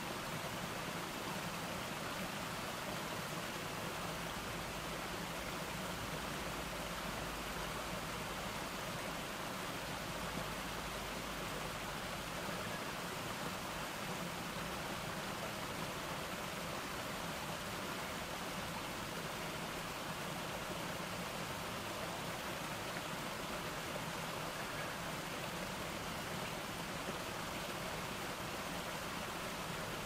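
Small rock cascade: water spilling down a series of stone ledges and running over rocks into a pool, a steady even rush of splashing water.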